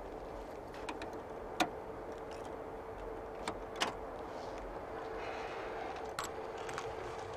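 A few sharp metallic clicks from keys and the trunk latch as a patrol car's trunk is unlocked and lifted open, the loudest about a second and a half in, over a steady hum.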